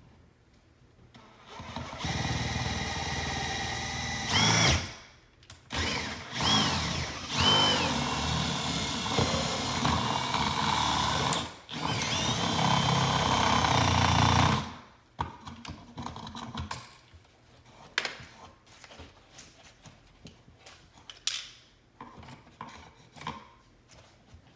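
Power drill running in several bursts, its motor speed rising and falling, boring a hole through the bottom of an electrical outlet box. Scattered light clicks and knocks follow in the last ten seconds.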